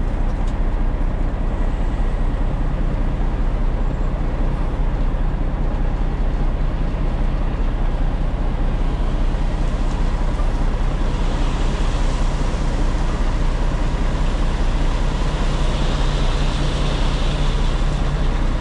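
Heavy diesel truck engine running steadily at idle, a deep even hum heard from inside the cab. A hiss joins about ten seconds in and swells again near the end.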